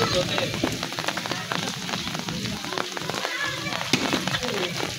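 Rain falling steadily on a wet, waterlogged lane, a dense patter of drops. There is a single sharp knock about four seconds in.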